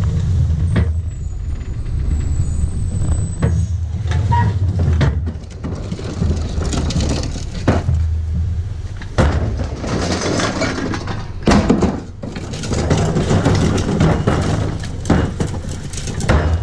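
Rear-loader garbage truck's engine running steadily while recycling carts are tipped into the hopper. Cans, plastic bottles and paper clatter and rattle onto the hopper floor in several bursts, most of them in the second half.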